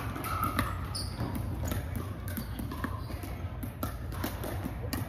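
Pickleball paddles striking a hard plastic ball in an indoor rally, short sharp pocks at irregular intervals, with more pocks coming from the neighbouring courts.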